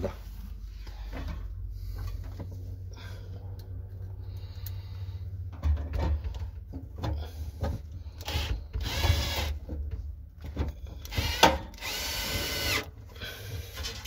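Power screwdriver driving screws into the water heater's casing, whirring in two short runs, the second longer.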